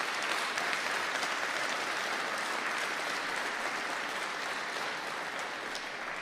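A large audience applauding, a dense steady clatter of many hands clapping that begins to die down near the end.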